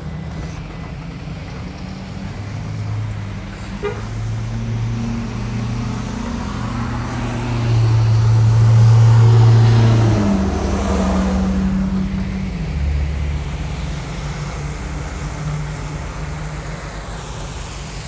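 Road traffic: a motor vehicle's engine runs low and steady, growing louder to a peak about halfway through as it passes, then easing off.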